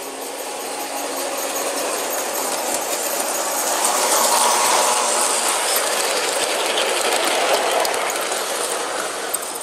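G-scale model train running on brass track: a steady rolling and rattling of wheels on rails with the hum of the locomotive's motor, growing louder over the first few seconds as the train comes close and passes.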